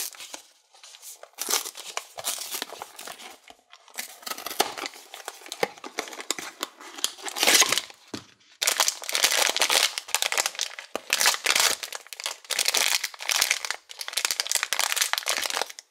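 Foil blind-box bag handled and crumpled in the hands: a long run of irregular crinkling and crackling, loudest about seven and a half seconds in.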